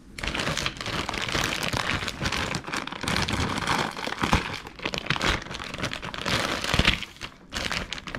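Clear plastic packaging bag crinkling as it is handled and opened by hand, with a brief lull about seven seconds in.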